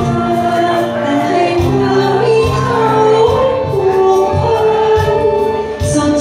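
A woman singing into a handheld microphone over backing music with a low bass line that comes in rhythmic pulses.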